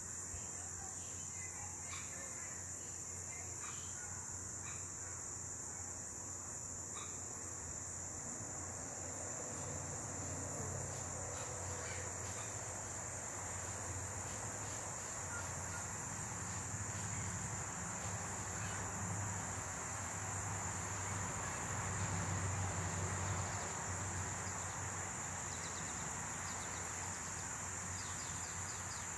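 A steady, high-pitched insect drone runs throughout. Under it, a low hum of honey bees flying around the opened hive swells toward the middle and then eases off, with a few faint knocks from hive handling near the start.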